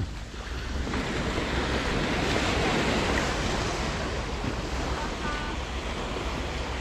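Small waves breaking and washing up the sand at the water's edge, the surge swelling about a second in and easing off again, with wind rumbling on the microphone.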